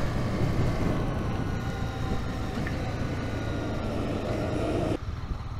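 Honda CB300R's single-cylinder engine running steadily at road speed, mixed with heavy wind rush on a helmet-mounted visor camera. The rush drops away abruptly near the end.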